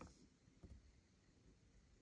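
Near silence: quiet room tone, with a faint click at the very start and a soft low knock just over half a second in.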